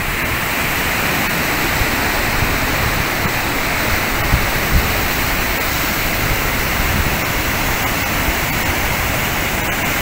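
Rough ocean surf breaking and foaming over black volcanic rock: a steady, even rush of white water with no let-up.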